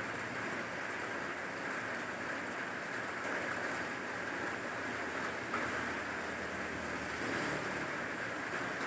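Steady rain falling, a continuous even hiss with no distinct drops or breaks.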